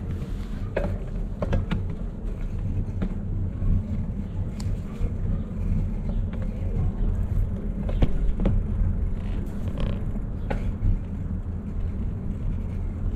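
Bicycle rolling over paving: a steady low rumble with scattered knocks and rattles from the bike.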